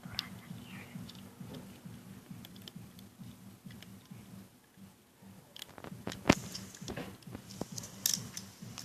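Soft clicks and taps of a plastic loom hook working rubber bands off a bracelet loom, with a few sharper clicks from about six seconds in, over a faint low hum.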